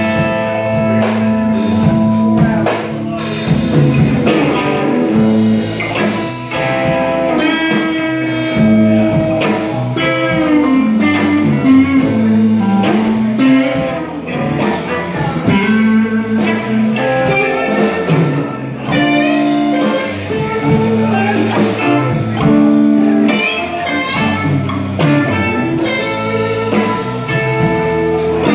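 Live blues band playing an instrumental break: electric guitar playing a lead line with bent notes over bass and drum kit.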